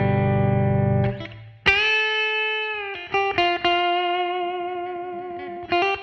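Michael Kelly Hybrid Special guitar, a hybrid acoustic-electric instrument, being played: a full chord rings out to about a second in, then after a short gap single notes are picked and left to ring, with a few more notes added near the middle and again near the end.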